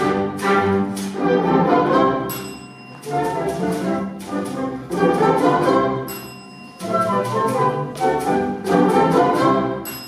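Orchestra with brass playing alongside a typewriter used as a solo percussion instrument: rapid, sharp key clicks over the music. The typewriter's bell rings twice, about two seconds in and again about six seconds in.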